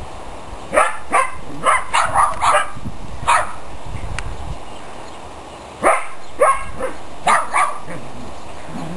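Dogs barking during rough play: a quick run of about seven short barks, a pause of a couple of seconds, then about five more from about six seconds in.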